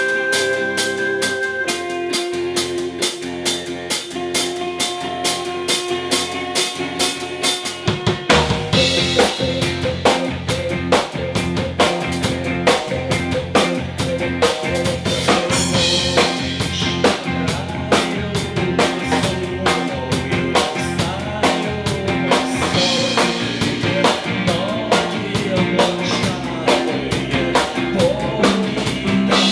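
Live rock band playing an instrumental passage: held guitar notes over a fast, light beat, then the full drum kit with bass drum and bass guitar comes in about eight seconds in and keeps a steady rock beat.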